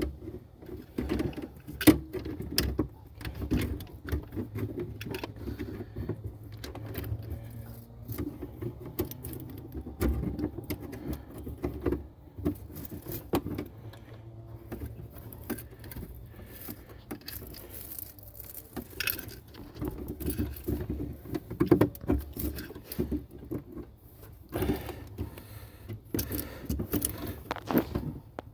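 Metal hand tools and parts clinking and rattling in an irregular run of sharp clicks and knocks, over a low steady hum, during work on a car's brake proportioning valve.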